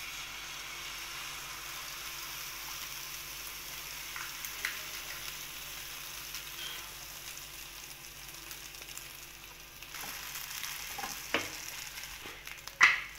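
Egg frying in butter in a frying pan, a steady sizzle, with a few sharp knocks near the end.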